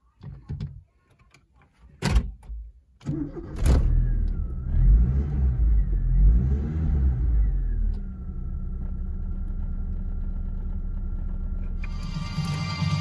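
Chevrolet Kadett GSI's four-cylinder engine cranking and starting about three seconds in, revving a few times and then settling into a steady idle. A few clicks and a thump come before the start, and music from the car stereo begins near the end.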